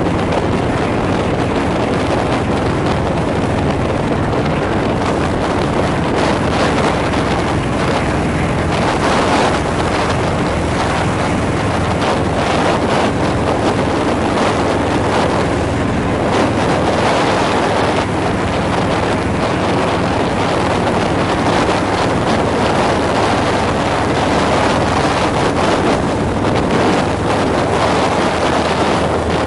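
Vehicle cruising at highway speed: a steady engine drone under heavy wind rush on the microphone.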